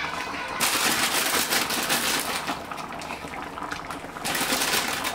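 Fish stew in coconut milk bubbling and popping at a simmer in a frying pan, a dense crackle of rapid small pops that starts about half a second in and stops suddenly near the end.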